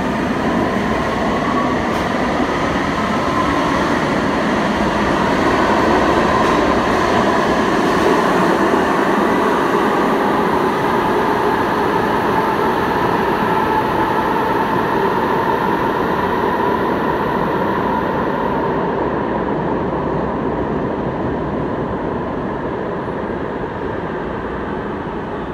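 Ottawa LRT Alstom Citadis Spirit light-rail train pulling out of an underground station. Its traction motors whine, rising in pitch over the first few seconds as it accelerates, over a steady rumble of wheels on rail. The sound fades slowly in the last several seconds as the train draws away down the tunnel.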